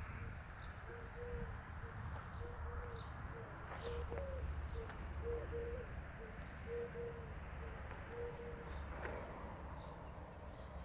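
A dove cooing over and over in short, low, evenly pitched notes, with a few faint high chirps from small birds.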